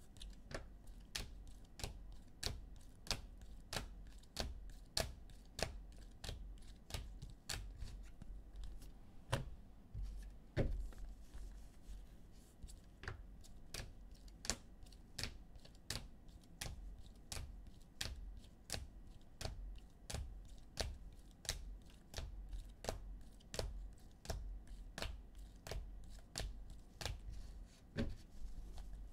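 Rigid plastic toploaders holding trading cards clicking against each other as they are flipped one at a time from one stack to the other, about two sharp clicks a second, with one louder knock about ten seconds in.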